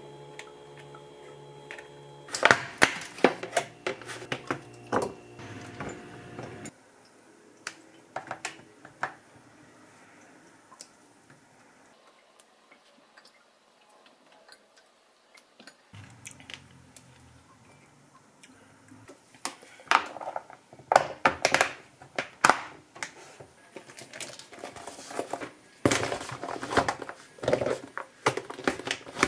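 Plastic lunch containers, their lids and a knife clicking and knocking as fruit is cut and packed into lunch boxes and the boxes are stacked into an insulated lunch bag. The clatter comes in scattered clusters and is loudest near the start and in the last ten seconds, with a quieter stretch in the middle.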